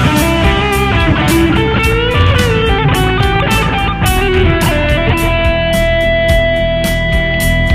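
Electric guitar played through a Mooer GE150 multi-effects processor: a lead line with a pitch bend about two seconds in, then one long sustained note through the second half.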